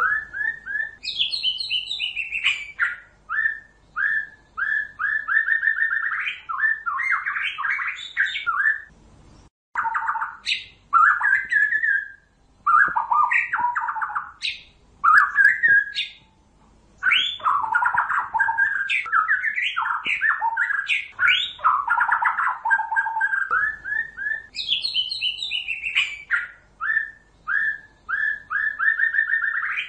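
White-rumped shama singing: a steady run of loud, varied whistled phrases and rapid chattering notes with short pauses between them. It is a decoy song recording played to lure shamas into a trap, and the same run of phrases starts over about 23 seconds in.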